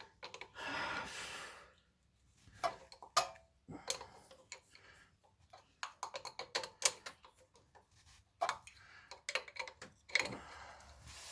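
Irregular light clicks and taps of hand tools and metal parts being handled, with a brief rustling scrape about a second in.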